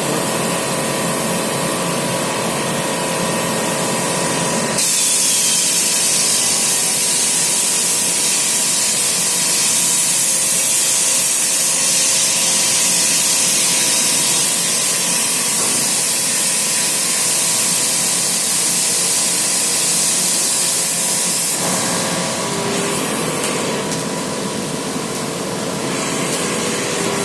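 CNC plasma cutter cutting sheet metal: a steady hum of the machine, then the plasma arc starts about five seconds in with a loud, high hiss that holds steady while it cuts and stops about twenty-two seconds in.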